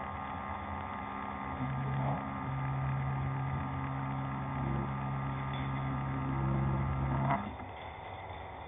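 A steady mechanical hum with a low fundamental and overtones, like a small motor or appliance running, that cuts off about seven seconds in.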